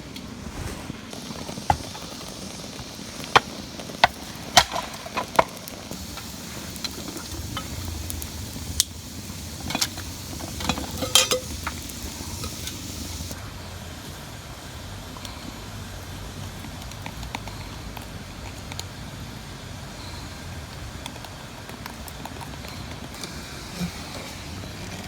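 Steady hiss of rain, with a cluster of sharp clicks and snaps from about two to twelve seconds in.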